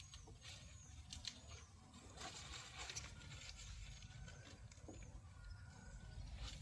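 Near silence: faint outdoor background with a few faint high chirps and some light rustling and clicks; no chainsaw running.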